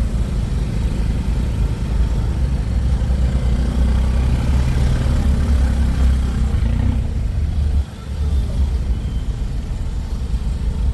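A car driving, a steady low engine and road rumble with a brief drop in level about eight seconds in.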